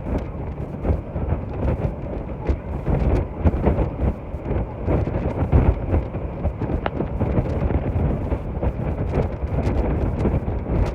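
Wind buffeting the microphone on a boat under way, a gusty low rumble that swells and drops.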